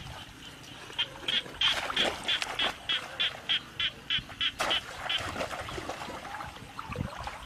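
A frog calling from the flooded paddy: a run of about a dozen short, high notes, roughly three a second, starting about a second in and stopping around five seconds in.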